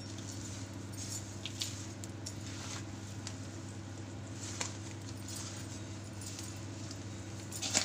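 Slotted steel spoon stirring a dry, crumbly ladoo mixture of roasted flour and fried edible-gum puffs in a steel bowl: soft scraping with occasional light metal-on-metal clinks, over a steady low hum.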